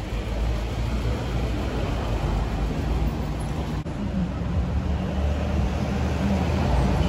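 Car engines running in busy street traffic. About halfway through the sound changes abruptly, and a deeper, steadier engine hum takes over.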